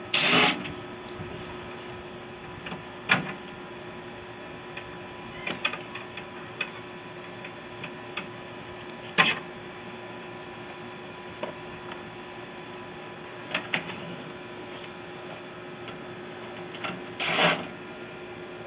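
Scattered knocks, clicks and clanks of hand tools and metal parts, typical of a microwave oven being taken apart, over a steady low hum. The loudest knocks come right at the start and near the end.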